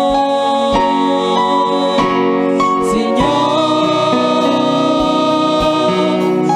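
Christian worship music: held, sung notes over sustained instrumental chords with a soft, steady beat.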